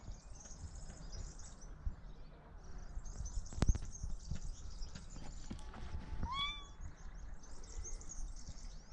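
A domestic cat meows once, a short call that rises and then falls, about six seconds in, over faint high chirping. A single sharp knock sounds a bit before halfway.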